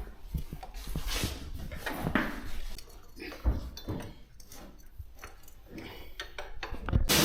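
Scattered clinks and knocks of tools and parts being handled while servicing a motorcycle, with a loud steady hiss starting suddenly at the very end.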